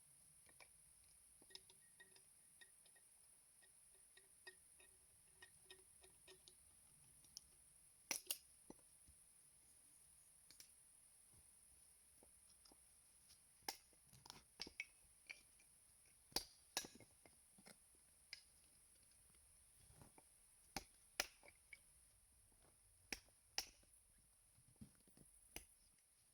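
Quiet background with a steady high hiss, broken by scattered sharp clicks and taps at irregular intervals. The taps are sparse at first and come more often in the second half.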